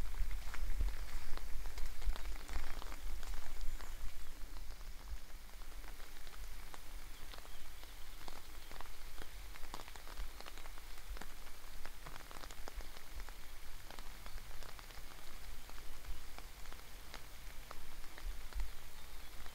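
Outdoor ambience: wind rumbling on the microphone, with a scattered patter of light ticks, louder in the first few seconds.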